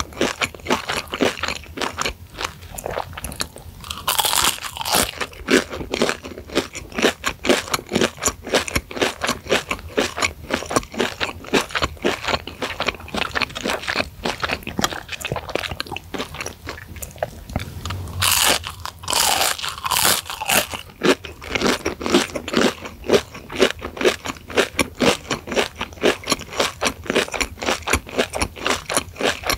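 Close-miked biting and chewing of fried crispy chicken sticks in a crunchy breadcrumb coating dusted with chili flakes: a steady run of crisp crunches, with louder bites about four seconds in and again around eighteen to twenty seconds.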